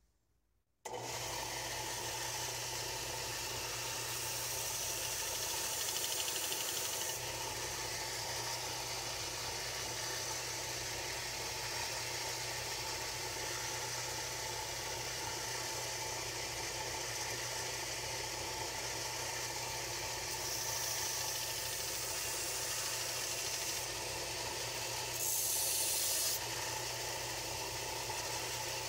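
Small bench belt sander running steadily, its motor humming, starting about a second in. It grinds a metal tool-post base plate, with short spells of louder hiss from the metal against the abrasive belt, the loudest near the end.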